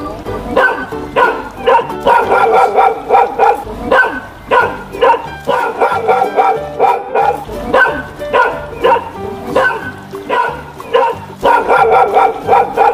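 Dog barking over and over, about one to two barks a second with some quick runs, over light background music.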